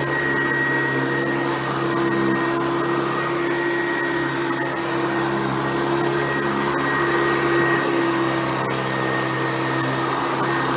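Hoover Convertible U4349 upright vacuum cleaner running steadily, its motor humming with a thin high whine over the rush of air, with a few faint ticks.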